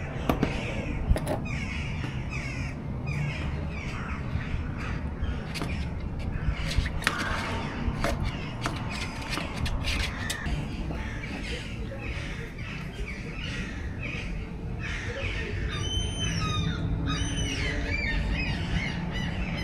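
Birds calling, with two or three clear arching calls near the end. Scattered knocks and clicks sound through the first half.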